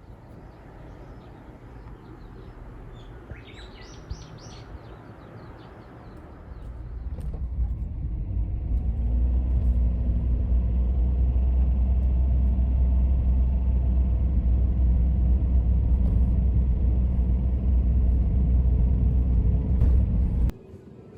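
Quiet outdoor background with a few bird chirps about four seconds in, then a loud, steady low rumble with a hum in it builds up from about six seconds and cuts off abruptly near the end.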